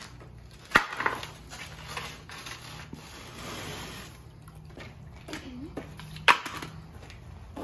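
Plastic ice scrapers scraping and tapping at a crust of ice and frozen snow on a car's hood and windshield. Two sharp knocks, one about a second in and one near the end, are the loudest sounds.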